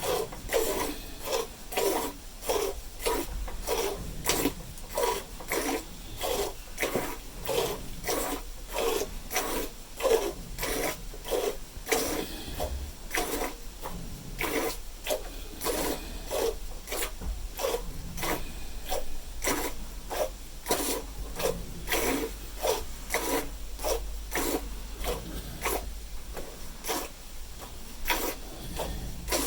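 Hand milking a cow: jets of milk squirting into a pail in a steady rhythm of about two squirts a second.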